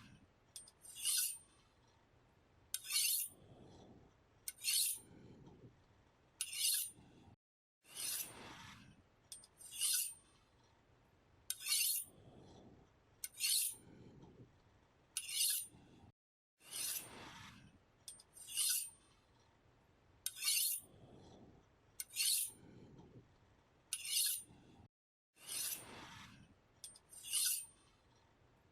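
A knife blade being sharpened with repeated scraping strokes, about one every two seconds. Every few strokes a longer stroke slides down in pitch.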